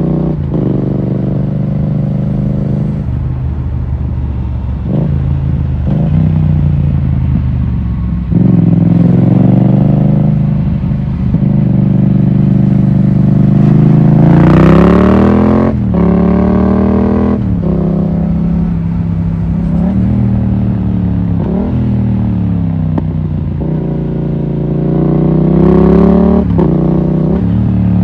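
Yamaha MT-07's 689 cc parallel-twin engine pulling up through the gears: the engine note rises with each gear, breaks briefly at each shift, and drops back as the throttle eases into the bends. The longest, loudest pull comes about halfway through, peaking just before a shift.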